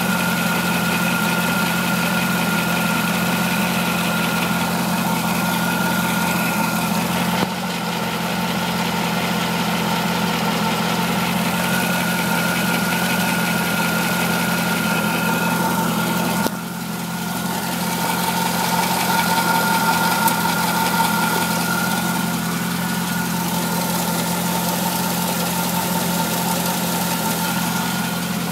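C5 engine idling steadily, with a ticking from underneath at the front of the engine near the harmonic balancer.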